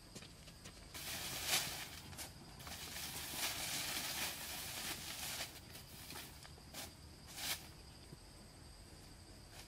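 Loose dry soil scraped and shoved by hand, a gritty scraping that starts about a second in and goes on for several seconds, followed by two short sharp scuffs.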